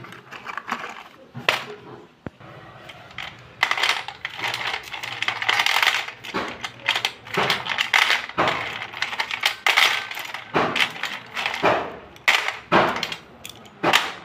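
Slate pencils clattering and clinking against a stainless steel plate and against each other as they are swept around and scooped up by hand: a dense, irregular rattle of sharp clicks and taps, busiest from about four seconds in.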